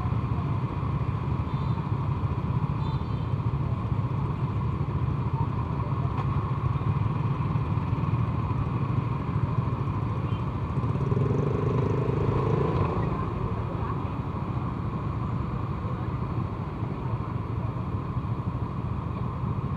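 A Yamaha Vega ZR underbone motorcycle and the motorcycles around it idling at a standstill, giving a steady low engine hum. Another engine swells briefly about eleven seconds in.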